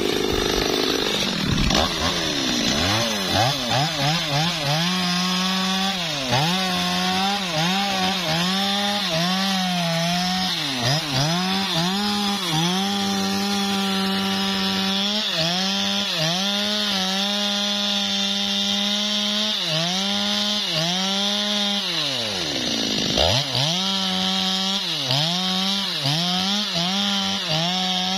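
Stihl two-stroke chainsaw cutting through a teak trunk at the base. Engine speed climbs about two seconds in, then repeatedly sags and recovers as the chain works in the wood, dropping nearly to idle about 22 seconds in before revving back up into the cut.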